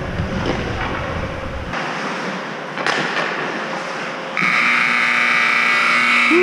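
Ice rink's period horn sounding one long, steady blast from about four seconds in, marking the end of the period; before it, steady rink noise.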